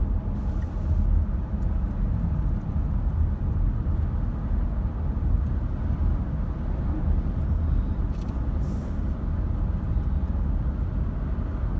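A car driving steadily on the highway: constant low road and engine noise.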